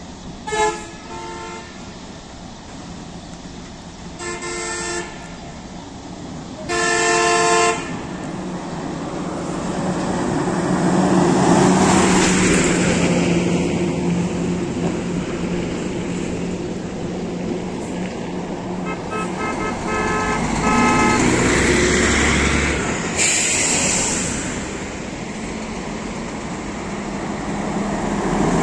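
Coach bus horn sounding short pitched blasts three times in the first eight seconds, the third the longest and loudest, then another horn about 19 seconds in. Between the blasts, heavy bus and truck engines pull away and pass on the road, swelling and fading.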